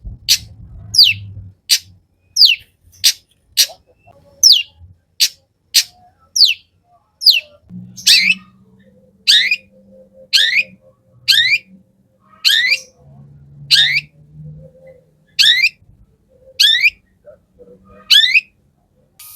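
Long-tailed shrike (cendet) calling a sharp, falling whistled note over and over, about two a second. About halfway through, the notes slow to roughly one a second and sweep down lower.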